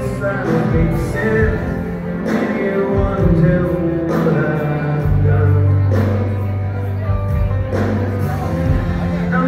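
Live rock band playing through a large PA, with male lead vocals over electric guitars and drums, heard from among the audience.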